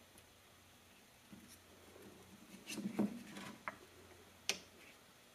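Quiet rustling and scratching as a thin film of cured silicone flashing is peeled off a plastic mold, with a busier patch of handling noise about midway and one sharp click near the end.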